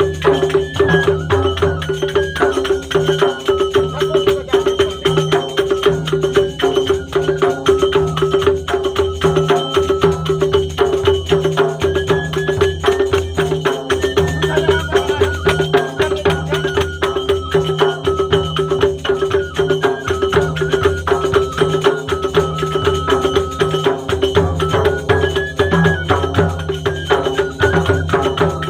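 Indian folk dance music: a busy, steady drum and percussion beat under a held drone note and a high melody that steps between a few pitches.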